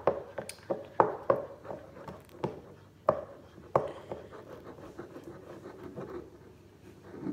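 A plastic spoon stirring glue in a bowl, knocking and scraping against the bowl's sides: irregular sharp clicks, most of them in the first four seconds, with softer scraping in between.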